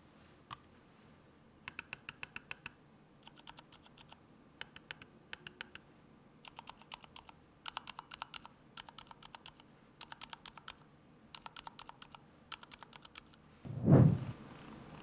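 Keystrokes on a BDN9 macropad fitted with lubed Zeal Sakurios silent switches, in short quick runs of several presses with pauses between them. Near the end a single loud low thump, louder than any keystroke.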